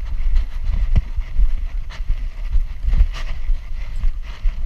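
Wind buffeting the microphone of a camera strapped to a Doberman's back: a heavy low rumble. Scattered knocks and rubbing about once a second come from the dog's movement jolting the back-mounted camera.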